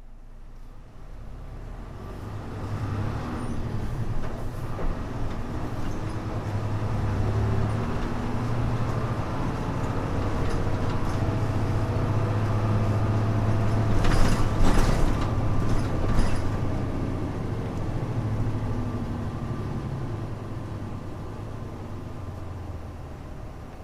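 Hino Blue Ribbon U-HU2MLAA city bus heard from inside while driving: its diesel engine running under way with a muffled, low hum that builds up over the first few seconds and eases off toward the end. A cluster of loud, sharp noises comes about fourteen to sixteen seconds in.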